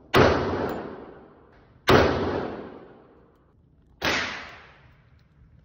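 Three gunshots at an indoor range, about two seconds apart, each followed by a long echoing decay off the booth walls; the last shot is a little quieter.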